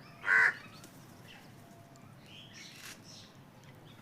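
A crow caws once, a short harsh call just after the start, then only faint background.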